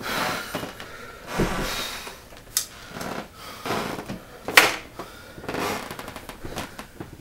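Someone moving about a small room: rustling and handling noises, a dull thump about one and a half seconds in, and a sharp click or knock a little past halfway, the loudest sound.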